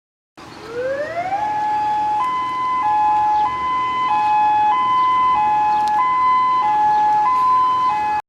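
Electronic siren: it winds up in pitch for about a second, then switches back and forth between two tones, a higher and a lower, each held about 0.6 s. It starts and cuts off suddenly.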